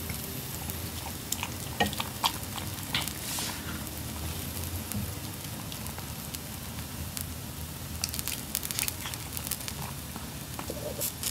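Pomeranian puppy chewing a piece of food, with small crisp crunches in the first few seconds and again about eight seconds in, over a steady faint background hiss. Near the end, metal tongs click against the pan.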